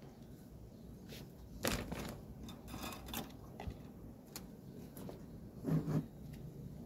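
Scattered clicks and knocks of small tools and parts being handled on a workbench. The sharpest comes about a second and a half in, a few lighter ones follow, and a duller knock comes near the end.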